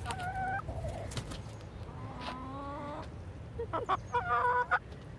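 Chickens clucking and calling. A short call comes at the start, a longer drawn-out call about two seconds in, and a louder, wavering call near the end.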